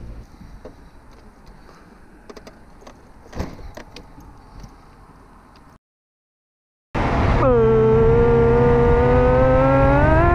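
Scattered quiet clicks and rattles for several seconds, then a brief silence, then from about seven seconds in a 50cc two-stroke moped engine running loud at speed, its pitch dipping and then climbing slowly. The engine is running again after its airbox had come loose.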